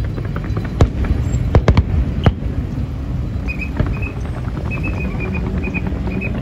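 Fireworks going off: several sharp bangs in the first couple of seconds amid crackling over a steady low rumble, followed by a run of short high-pitched tones.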